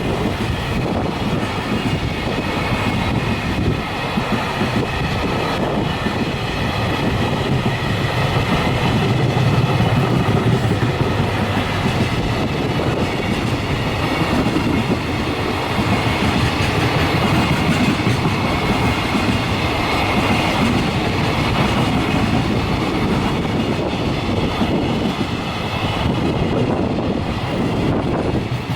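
Long container freight train rolling steadily past, its wagons running over the rails, with wind buffeting the microphone.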